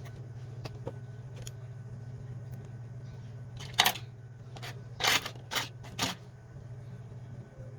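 Sharp clicks and short scrapes of small hard plastic parts being handled, about five of them between roughly four and six seconds in, over a steady low hum.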